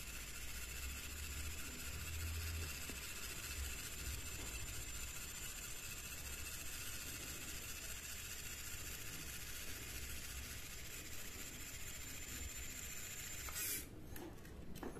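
Faint steady whir of a 3D printing pen's small filament feed motor pushing filament through the heated nozzle while drawing, under a steady hiss that drops out shortly before the end.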